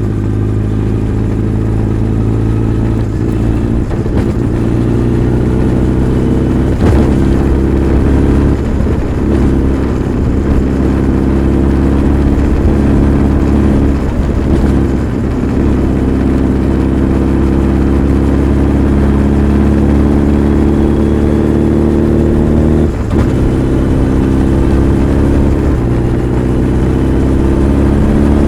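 Honda CB1300 Super Bol d'Or's inline-four engine and exhaust under way on the road. The note rises and falls with the throttle, is broken by a few brief dips, and climbs in pitch toward the end.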